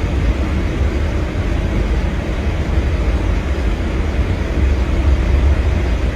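Loud steady roar of blizzard wind, with heavy low buffeting of wind on the microphone.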